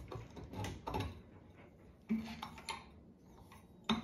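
Light metal clinks and knocks, about half a dozen in a few seconds, from handling the chandelier's metal canopy, stem and mounting screws at the ceiling bracket.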